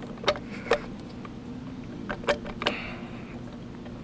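Sharp metal clicks as a bronze propeller blade and its pivot pin are worked into the folding propeller's hub: four clicks in two pairs, over a steady low hum.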